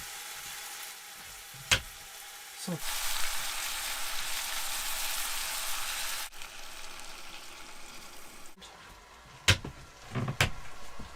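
Beef cubes sizzling as they fry in a pan, the sizzle swelling much louder about three seconds in and settling back later. A few sharp clicks stand out near the start and near the end.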